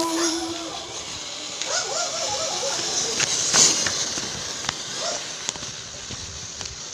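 A song's last held note ends in the first second. Then faint voices with scattered sharp clicks and knocks over a steady hiss.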